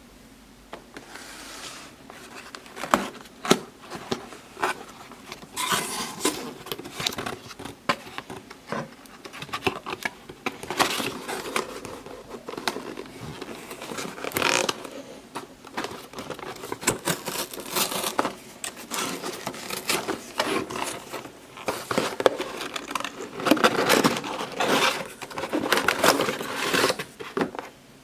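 Hot Wheels Sharkruiser plastic toy car being handled and run, giving a busy, irregular clatter of plastic clicks, rattles and scrapes that comes in louder spells.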